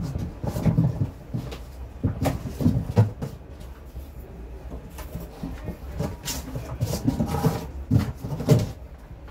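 Cardboard box being handled: flaps pushed open and folded back with a series of dull thumps and scrapes, and paper rustling as the warranty card and manual are pulled out.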